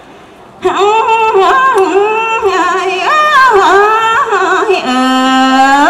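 A woman singing Khmu tơm, the traditional sung verse, solo with no instrument heard. Her voice comes in about half a second in, with sliding, ornamented pitch, and near the end she holds one lower note that rises sharply at the close.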